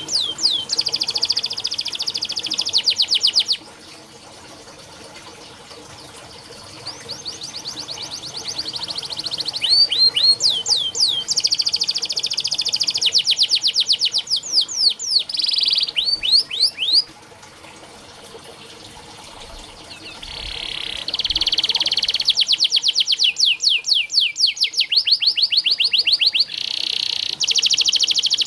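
Domestic canary singing: long rolling trills of rapidly repeated high notes, in several phrases broken by pauses of a couple of seconds.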